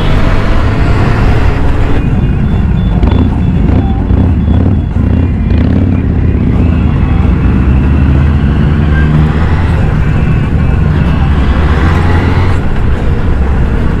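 Several superbike engines running on the move, a steady low engine drone whose pitch rises and falls with the throttle.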